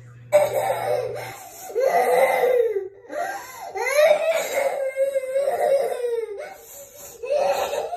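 A young girl crying hard: about five long, wavering wails with short breaks for breath, starting suddenly.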